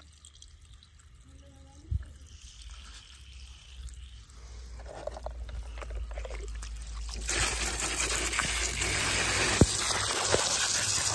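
A stream of water pours and splashes onto a plastic toy car in grass, starting loud about seven seconds in and running steadily. Before it there are quiet handling noises, with a single knock about two seconds in.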